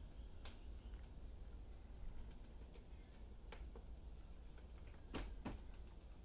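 Faint taps and clicks from a cat's paws and claws on a wooden bookshelf top as it moves about and jumps down. The loudest pair of clicks comes about five seconds in.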